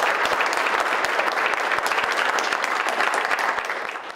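Audience applauding, a dense steady clatter of many hands clapping, fading near the end and cutting off suddenly.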